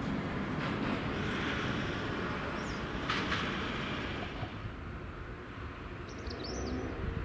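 JR East GV-E400 diesel-electric railcar moving slowly on the rails: a steady low engine rumble with a rushing wheel-on-rail noise that fades about four seconds in. A short clank comes about three seconds in, and a bird chirps near the end.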